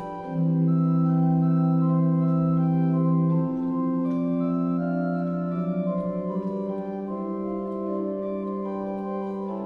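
Organ music in slow, sustained chords: a low chord swells in about half a second in and is held until about three and a half seconds in, then the chords change every second or so.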